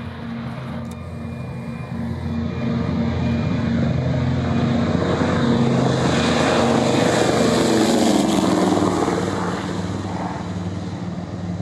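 Douglas C-47's twin Pratt & Whitney R-1830 radial engines and propellers at full takeoff power, growing louder as the plane rolls and lifts off toward the microphone. It passes close about seven seconds in, then drops in pitch and fades as it climbs away.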